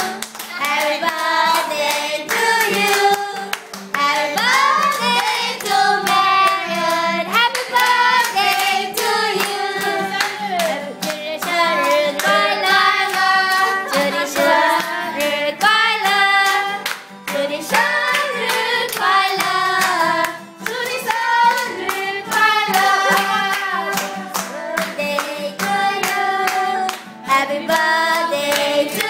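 Voices singing together to a strummed acoustic guitar.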